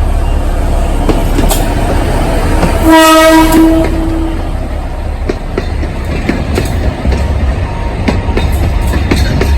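Alishan Forest Railway train running, a steady low rumble with irregular clicks of wheels over the rail joints. About three seconds in the train's horn gives one short blast of under a second.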